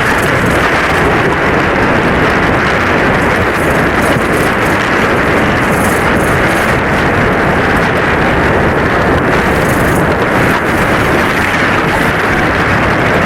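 Steady, loud wind rushing over the microphone on a sailing catamaran, with no break.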